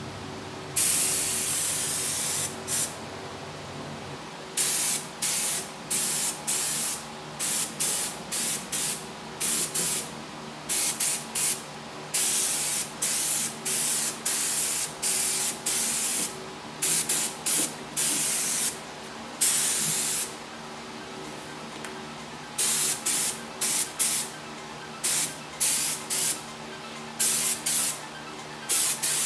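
Air-fed paint spray gun hissing in repeated bursts as the trigger is pulled and released, some bursts a second or two long, many brief, over a steady low hum.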